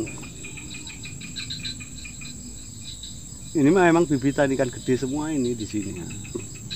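Insects chirping steadily in short rapid pulses. A man's voice talking comes in about halfway through.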